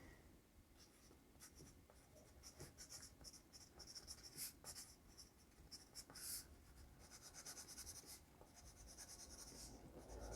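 Faint scratching of a 2 mm mechanical pencil's graphite lead on paper during writing, in short irregular strokes that begin about two seconds in.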